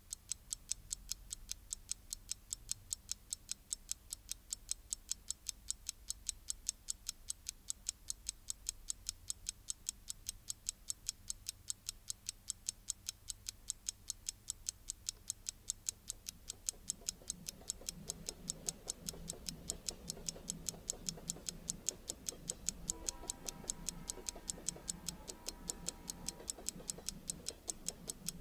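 A clock ticking steadily and evenly. Low, dark music tones swell in beneath it about two-thirds of the way through, and higher tones join near the end.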